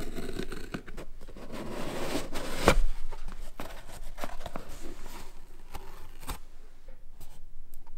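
Scissors cutting through the tape seal on a cardboard box, with a sharp snap a little under three seconds in. After it come quieter scattered clicks and rustles of cardboard and foam as the box is opened and its foam insert lifted.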